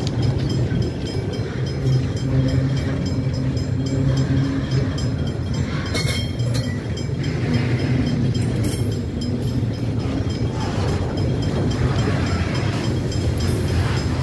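Freight wagons loaded with steel coils rolling steadily past on the rails, with a steady low hum of wheels on track and a couple of brief metallic clanks about six and nine seconds in.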